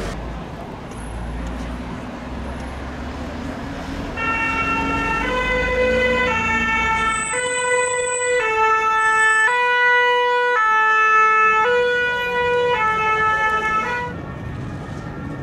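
French two-tone siren of a Paris fire brigade van, stepping back and forth between two notes about once a second. It starts about four seconds in and stops about ten seconds later, over a low traffic rumble.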